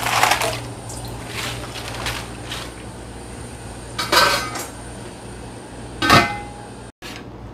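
Stainless steel bowl knocking and clinking against a stainless pot as greens are tipped into boiling water, then a metal pot lid clanking down about six seconds in, ringing briefly. A steady low hum runs underneath.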